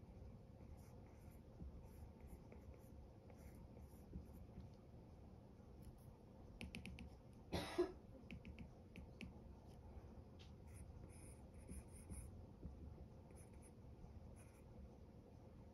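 Apple Pencil tip tapping and scratching on the iPad's glass screen in short, faint sketching strokes, with one louder brief rub about halfway through as the hand sweeps across the screen.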